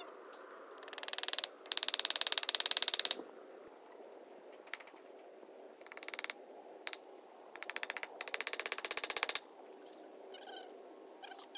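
A ratchet mechanism clicking rapidly in several runs that start and stop, the longest lasting about two seconds, during work on a wire fence post.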